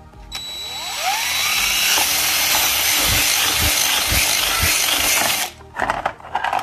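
Power drill spinning up and drilling through Kydex sheet, the bit worked around to widen the hole, running steadily for about five seconds before it stops. Plastic clatters from handling the holster near the end.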